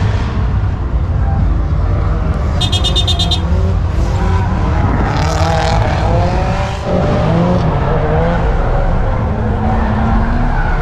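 Car engines revving, with tyre squeal wavering in pitch, over a steady low rumble. A brief rapid high chirping sounds about two and a half seconds in.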